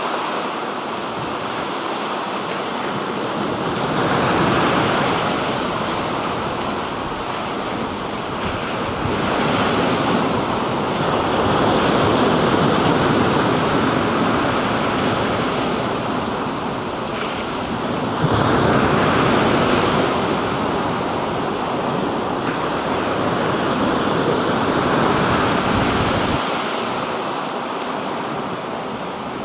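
Black Sea waves breaking and washing on the shore, swelling and easing every several seconds, with some wind on the microphone.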